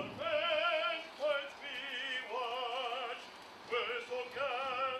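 Solo singer singing in an operatic style, held notes with wide vibrato separated by short breaths.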